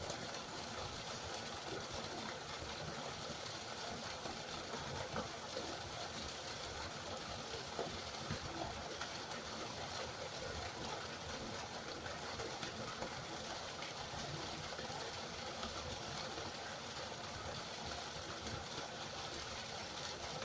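River water flowing: a steady, even rush of water without pause.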